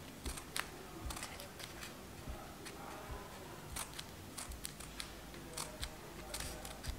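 Scissors making a quick, irregular series of short snips into a folded paper strip, cutting a fine fringe.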